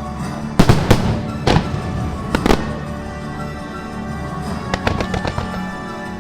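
Fireworks bursting over the show's music: four loud booms in the first two and a half seconds, then a quick run of smaller pops near the end, with the music playing steadily throughout.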